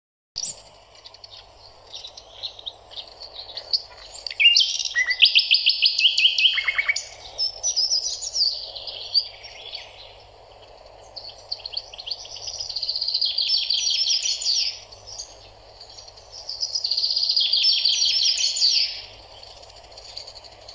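Small birds singing: three spells of fast, high trills a few seconds apart, over a steady low hiss.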